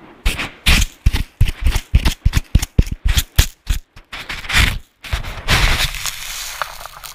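A rapid, irregular series of sharp bangs, followed by about two seconds of steady hiss-like noise.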